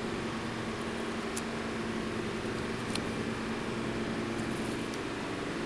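Steady low mechanical hum, like a fan or small motor running, with a couple of faint clicks.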